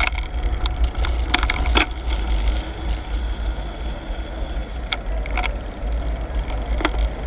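Wind buffeting the microphone of a camera riding on a moving bicycle, a steady low rumble, with a few short clicks and rattles scattered through it.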